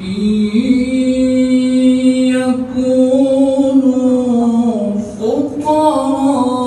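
A single voice chanting unaccompanied in long held notes that shift slowly in pitch, with a brief breath-break a little after five seconds before the next phrase. It is Quranic recitation as part of an Islamic marriage ceremony.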